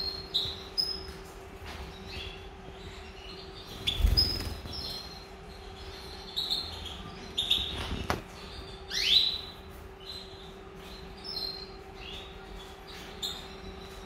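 Goldfinch giving short, scattered chirping calls, with one longer rising call about nine seconds in. Two dull thumps come around four and eight seconds in, the first the loudest, over a steady low hum.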